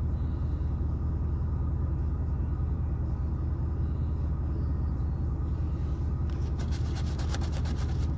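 Steady low hum of a car's idling engine, heard from inside the car. From about six seconds in, a coin scratches a lottery scratch-off ticket in rapid strokes.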